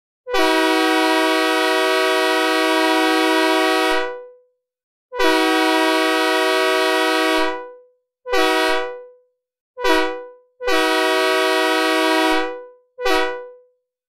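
Synthesized recreation of a Leslie S3K three-chime locomotive air horn, made with the Wasp synthesizer in FL Studio, sounding six blasts: two long ones of about three to four seconds, two short ones, another long one and a final short one. Each blast is a steady multi-note chord that fades away with reverb when released.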